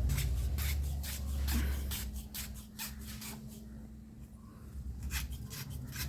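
A slotted steel pipe nipple being twisted into a PVC pipe as a makeshift tap, its threads scraping and rasping as they cut a thread into the plastic. Short scraping strokes come a few times a second, with a brief pause about two-thirds through.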